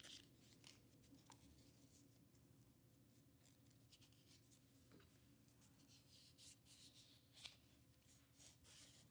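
Near silence: faint rubbing and a few small ticks from cleaning the disassembled lens parts by hand.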